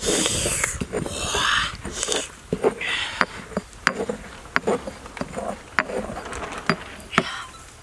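Stone pestle pounding and grinding wet chili sauce in a stone mortar: wet mashing and scraping, with sharp knocks of stone on stone at an uneven pace, a few a second. The mashing is strongest in the first few seconds; the knocks thin out near the end.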